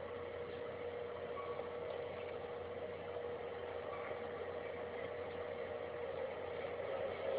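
A steady droning hum with one held tone, unbroken and unchanging, of the kind passed around as a mysterious 'strange sound' heard in the sky.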